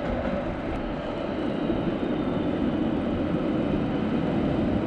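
Steady rumbling road noise of a bicycle rolling over stone paving, heard from a camera riding along with it.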